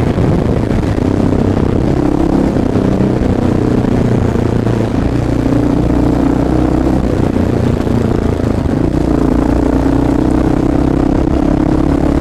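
Honda XR650L's single-cylinder four-stroke engine running steadily under way, its note shifting a little up and down.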